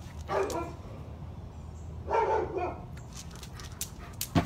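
A dog barking twice, about two seconds apart, followed by a few sharp clicks and a thump near the end.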